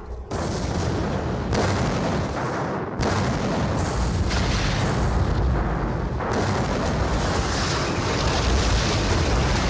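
Heavy artillery fire: several booms a second or two apart over continuous rumbling noise.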